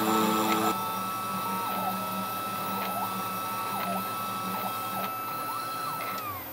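Desktop CNC router carving wood with a 1 mm ballnose bit: a steady high spindle whine, with short whirring rising-and-falling glides about once a second as the stepper motors move the axes. Near the end the whine drops in pitch.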